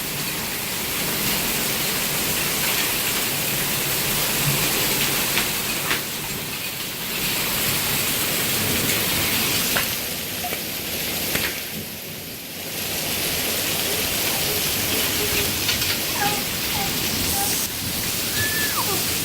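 Heavy rain and hail coming down in a steady rushing hiss, easing briefly about twelve seconds in.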